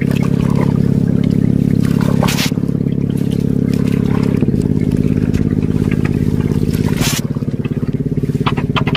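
Small boat engine running steadily with a fast pulsing beat, its pitch shifting slightly about four and a half seconds in and again about seven seconds in.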